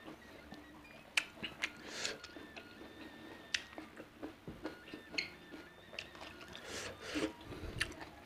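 Close-miked eating sounds: chewing with wet mouth clicks and smacks, and short crackles as fingers work through rice and food, in irregular bursts.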